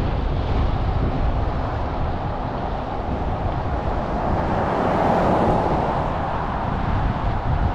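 John Deere 9500 combine's turbocharged six-cylinder diesel running steadily in the field, with wind buffeting the microphone. The machine noise grows louder around five seconds in, then eases again.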